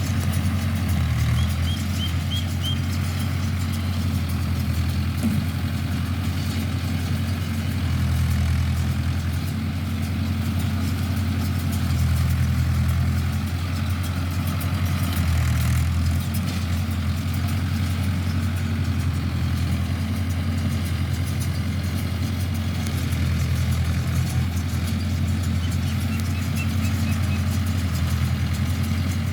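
Mahindra tractor's diesel engine running steadily, driving a baler, its low hum swelling slightly every few seconds.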